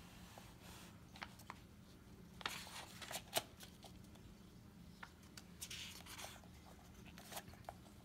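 Pages and cover of a hardcover book turned by hand: two soft paper rustles, with small taps and clicks of paper and cover in between.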